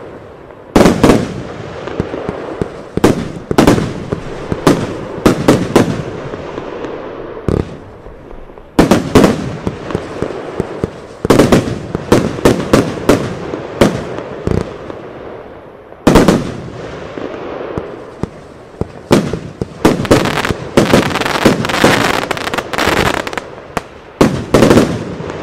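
Eurostar 'Loco Loco' compound firework cake firing: a long irregular run of sharp launch thumps and aerial bursts, coming in quick clusters with short lulls, and densest near the end.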